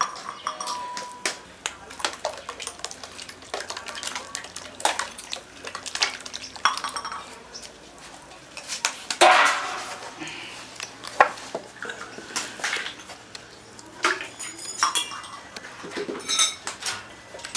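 Metal cookware clattering: repeated clinks and knocks of steel trays, pots and utensils, with a louder rush of noise about halfway through.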